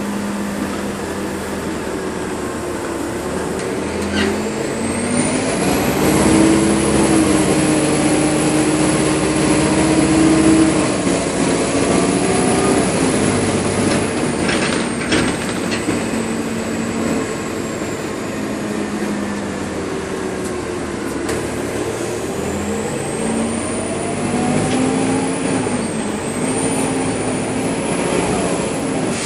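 City bus driving in traffic, heard from inside the cabin: engine and drivetrain hum rising and falling in pitch as it pulls away and slows, over steady road noise. A high whine climbs about five seconds in, holds, falls away, and climbs again near the end.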